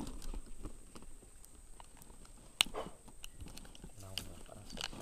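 Handling noise at a fabric fishing bag: scattered light clicks and rustles of hands working its mesh lid around a freshly caught snakehead and a soft frog lure, with one sharp click about two and a half seconds in.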